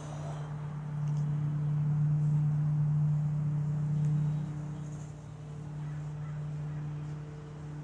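A steady, low engine hum at a constant pitch, growing louder about a second in and easing off after about four and a half seconds.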